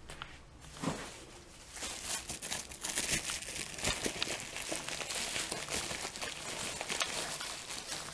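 Crinkling and rustling of something being handled off to the side, starting about two seconds in and running on as a dense crackle. There is a light knock about a second in and another near four seconds.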